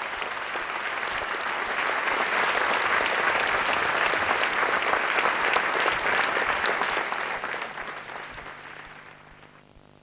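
Large theatre audience applauding. The clapping swells over the first couple of seconds, holds, and then dies away over the last few seconds.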